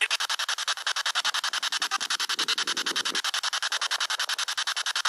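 SB7 spirit box sweeping through radio stations: steady choppy static pulsing about ten times a second, with a brief lower, muffled fragment between two and three seconds in.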